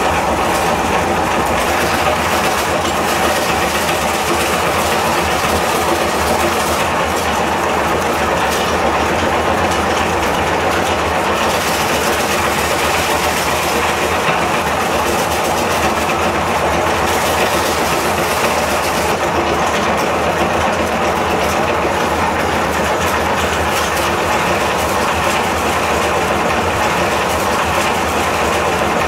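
Electric meat grinder running steadily under load as it grinds chikki (peanut brittle), its motor hum mixed with the continuous crunching of the brittle being crushed and forced out through the cutting plate.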